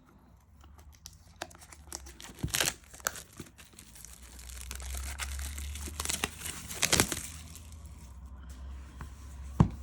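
Plastic wrapping being torn and crumpled off a boxed oracle card deck: crackling rustles with sharp snaps, busiest about a third of the way in and around seven seconds, and one sharp click near the end.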